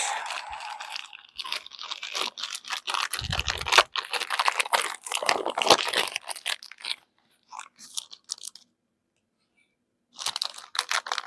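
Plastic packaging crinkling and rustling as small parts are unwrapped by hand, with a low thump about three seconds in. It stops for a second or so near the end, then starts again.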